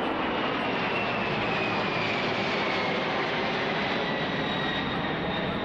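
Four turbofan engines of the Boeing 747 Shuttle Carrier Aircraft in a low climbing pass after takeoff: a loud, steady jet roar with a thin high whine that slowly falls in pitch as the aircraft goes by.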